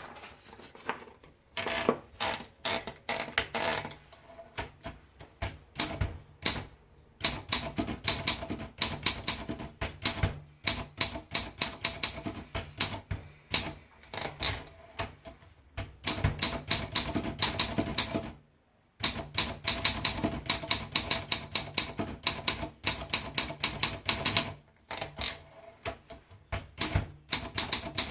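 Olympia SM2 manual portable typewriter being typed on: quick runs of sharp key strikes, several a second, broken by short pauses and one brief stop about two-thirds of the way through.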